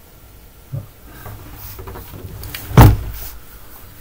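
A single dull thump about three seconds in, with a smaller knock about a second in, over a low steady hum.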